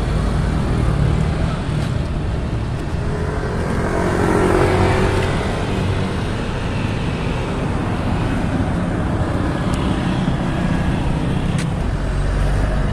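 Road traffic passing on the street: cars and motorbikes running by, with one vehicle passing louder about four to five seconds in.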